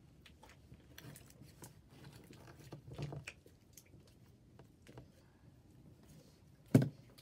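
Sticky slime being stretched and squished by hand: scattered soft clicks and wet crackles, with one sharp, louder smack near the end.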